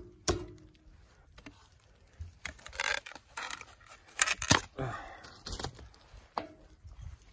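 Handling noises: light metallic clinks and scattered knocks as tools and a wood block are picked up and moved about, with a cluster of sharper knocks about four seconds in.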